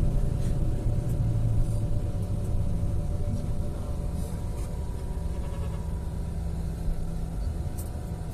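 Steady low rumble of a moving vehicle heard from inside the cabin: engine and road noise while driving.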